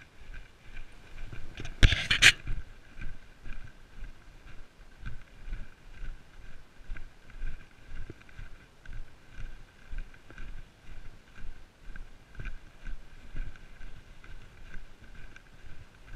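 A hiker's footsteps and trekking-pole strikes on a sandy forest trail, a steady walking rhythm of about two steps a second. A loud, brief scraping rustle about two seconds in.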